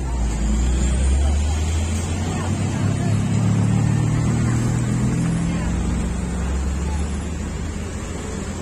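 Forklift engines running under load, a low steady drone that swells about a second in and eases off after about seven seconds.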